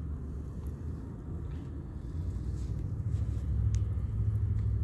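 Low outdoor rumble, growing louder about two seconds in, with a few faint ticks.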